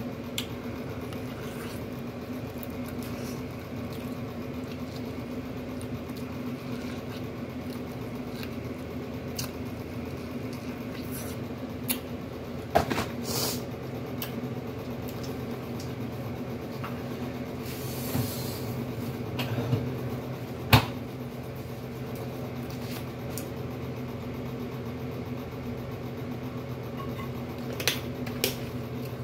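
Steady low mechanical hum, with occasional crinkles and clicks from a plastic bag and food being handled, and the crackle of a plastic water-bottle cap being twisted open near the end.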